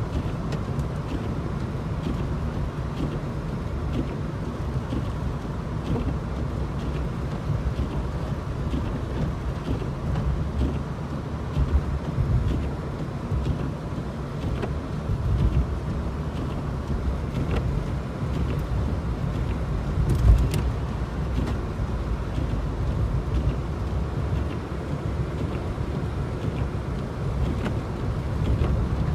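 Car driving through snow and slush: a steady low rumble of tyres and engine, with a few short knocks, the loudest about twenty seconds in.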